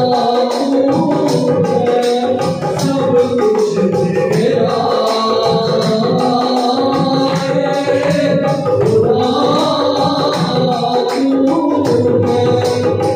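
Devotional song sung by men to a harmonium, with a tambourine shaken in a steady rhythm.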